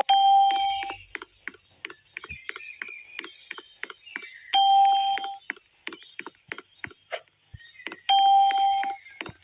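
Electronic beep tone sounding three times, each about a second long and about three and a half seconds apart, with quick irregular clicks between the beeps.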